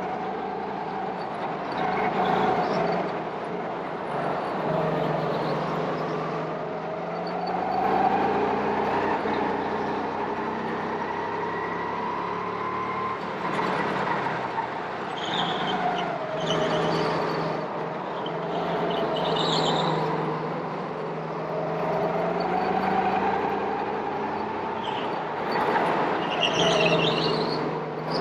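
Go-kart running on track: its motor's pitch rises as it accelerates and drops back every few seconds as it slows, over and over.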